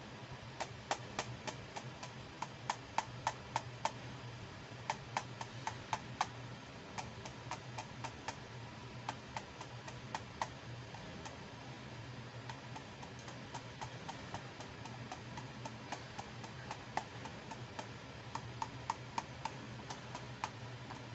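Small plastic toy accessories being handled, giving quick, light clicks and taps in irregular clusters with short pauses between them.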